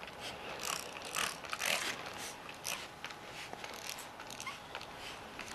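Soft, irregular scrubbing and wiping strokes on the fabric skin of an ultralight's wing being cleaned with household degreaser, about one or two strokes a second.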